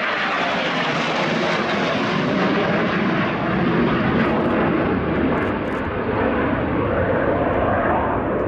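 Two EAV-8B+ Harrier II jets flying past in formation, their Rolls-Royce Pegasus turbofans giving loud, steady jet noise. The hiss dulls gradually as the pair bank away.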